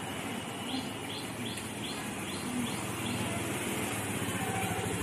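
Motor scooter's small engine running as it rides up and slows to a stop. A bird chirps over it, a short call repeated about twice a second in the first few seconds.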